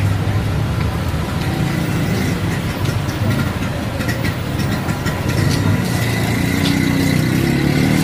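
Street traffic: motor vehicle engines running close by with a steady low hum, one engine rising in pitch over the last few seconds.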